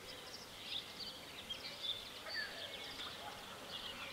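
Several songbirds chirping and singing in quick, high-pitched phrases.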